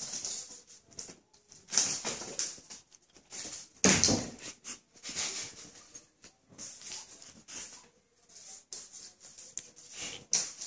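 A cat chasing and pouncing on a feather toy on a string pulled across a hard floor: irregular scuffs, paw patter and swishes, with one louder thump about four seconds in.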